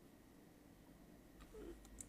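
Near silence: faint room hiss, with a soft brief sound about one and a half seconds in and a faint click at the very end.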